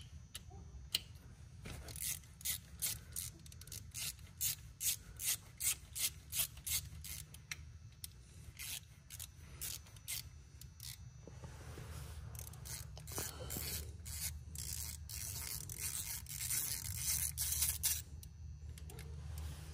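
Hand ratchet wrench turning bolts: sharp clicking strokes about two a second, then faster, continuous ratcheting in the last part.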